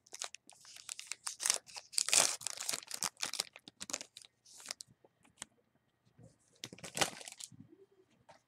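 Crinkling and rustling of trading-card packaging and cards being handled, in irregular bursts, dense for the first few seconds and again about seven seconds in.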